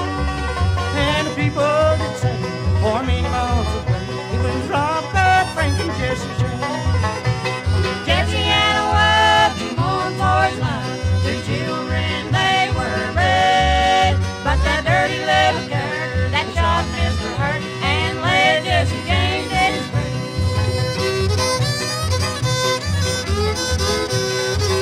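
Bluegrass string band playing an instrumental break without vocals: banjo, fiddle, mandolin and guitar over bass.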